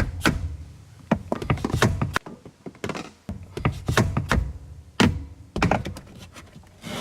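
A rapid, irregular series of knocks and taps, some sharp and some dull and thudding.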